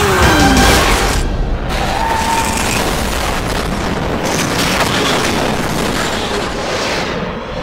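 Movie-soundtrack mix of heavy booms and dense rumble, with music underneath.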